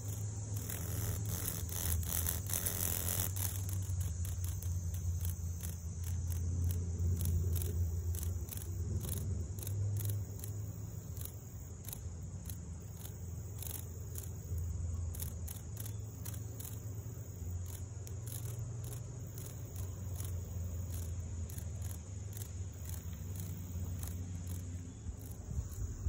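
Steady high-pitched insect chorus with irregular dry rasping clicks, over a steady low rumble.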